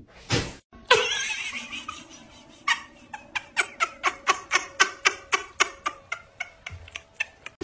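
A cat wearing small shoes walking on a hard tiled floor, the shoes clicking about four times a second. A short thump and rustle come about a second in, before the steps.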